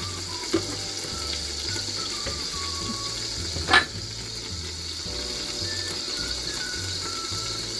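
Oil sizzling steadily in a pot of frying onion, garlic and tomato paste, with one sharp knock a little past the middle. Faint background music runs underneath.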